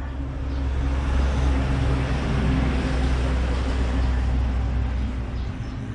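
A motor vehicle passes close by: engine hum and road noise swell up, peak in the middle and fade away.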